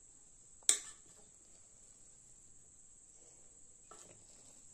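A metal utensil clinks sharply once against the aluminium pressure cooker with a brief ring, and taps it again lightly near the end, while the biryani is fluffed. A steady, faint, high-pitched whine runs underneath.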